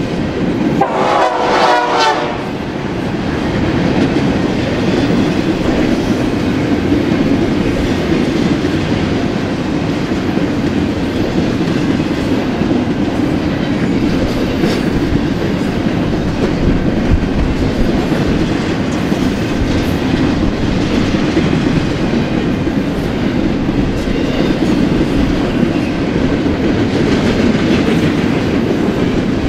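Double-stack intermodal freight train's well cars rolling past, a steady rumble of steel wheels on rail with clickety-clack over the joints. A brief high, wavering tone sounds over it in the first two seconds.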